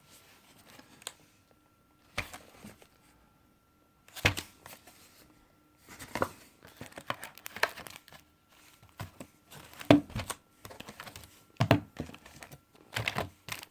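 Wrapping on a brick of playing cards being torn open and crinkled by hand: irregular crackles and rips with short pauses, the loudest near the end.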